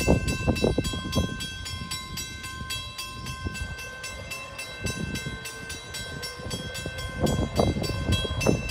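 Railroad grade-crossing warning bell ringing with rapid, evenly spaced strikes, signalling the crossing is activated for an approaching train, over a low uneven rumble.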